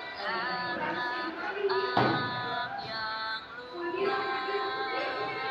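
A song playing: a sung melody over instrumental backing, with one sharp beat about two seconds in.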